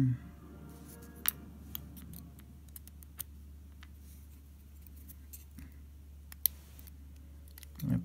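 A few sparse, sharp metallic clicks of metal tweezers against a brass lock cylinder and its small pins as the pin stacks are taken out of the gutted padlock cylinder, over a low steady hum.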